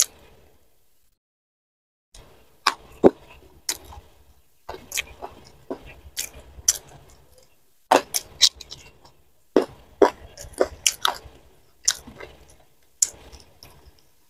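Close-miked eating sounds: wet chewing and irregular sharp crunches and mouth clicks as raw side vegetables such as petai beans and leunca berries are bitten and chewed. The sound starts after about two seconds of near silence.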